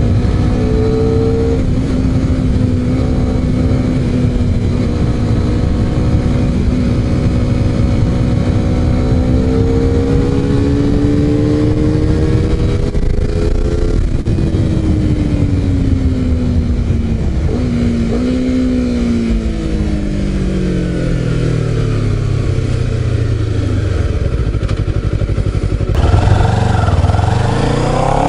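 Honda CBR250RR parallel-twin with an SC-Project aftermarket exhaust, heard from the rider's seat. It runs at steady, slowly rising revs, then the pitch falls through a few downshifts as the bike slows. About two seconds before the end there is a sudden louder burst of revs, and the engine note climbs again as it pulls away.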